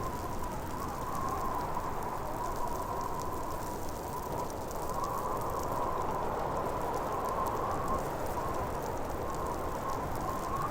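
Blizzard wind blowing steadily, a low rushing noise with a wavering, whistling howl riding on top.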